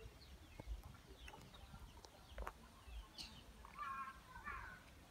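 Faint outdoor ambience: a chicken clucking a few times near the end, with light wind rumble on the microphone.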